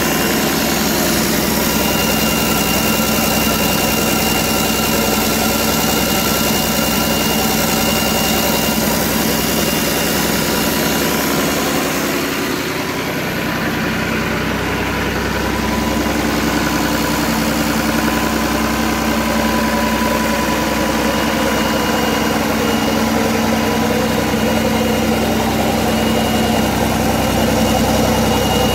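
Freshly rebuilt Perkins 6354 six-cylinder diesel engine idling steadily while still cold after start-up. Its tone shifts slightly and dips briefly about halfway through.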